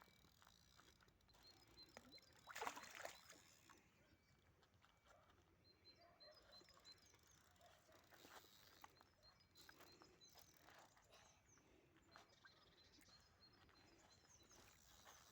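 Near silence: faint outdoor ambience with scattered small knocks and rustles, one louder rustle about two and a half seconds in, and faint short high chirps repeating now and then.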